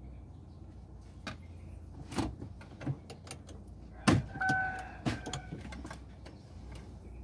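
Plastic console trim around a Chevrolet's gear shifter clicking and knocking as it is handled and fitted, with the loudest knock about four seconds in and a brief high tone just after it.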